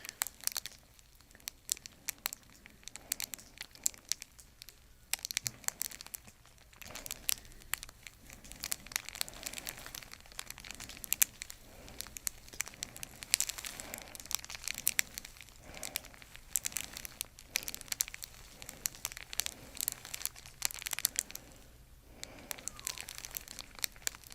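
Soft crinkling and rustling with many small, irregular crackles: hands holding and moving a patient's head and neck during manual neck traction.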